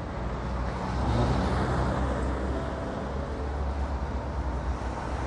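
Road traffic on a city street: a steady noise of car engines and tyres that swells about a second in as a vehicle passes.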